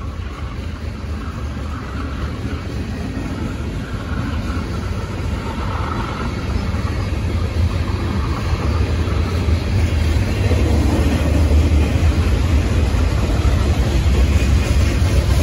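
CSX manifest freight train's cars rolling past: a steady rumble of wheels on rail that grows louder over the last several seconds.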